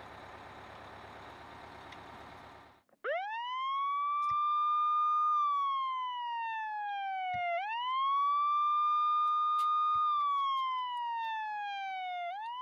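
A wailing siren sound effect starts about three seconds in: each cycle sweeps up fast, holds, then slides slowly down, and it repeats about every four and a half seconds, nearly three times. Before it there is a steady low rushing noise, and a few light clicks sound over the siren.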